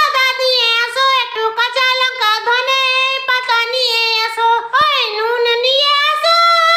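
Only speech: a very high-pitched voice talking without pause.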